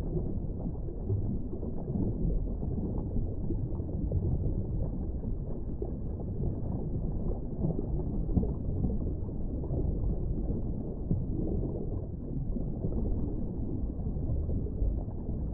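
A steady, muffled low rumble with no clear tone, flickering slightly in strength.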